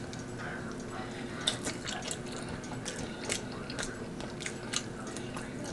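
Close-miked chewing of rotisserie chicken: a long run of irregular wet mouth clicks and smacks.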